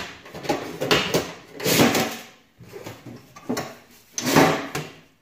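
Metal safe-deposit box drawers in a bank vault being slid out and handled: about five sharp metallic clatters and scrapes, a second or so apart.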